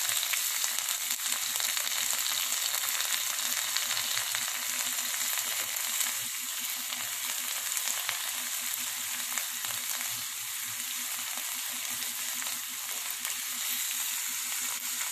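Chopped onion and green capsicum sizzling steadily in butter in a nonstick frying pan as they are stirred with a silicone spatula.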